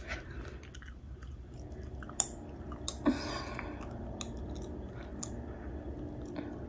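Faint clicks and rustling close to the microphone, with one sharper click about two seconds in and a brief rustle just after three seconds, over a low steady hum.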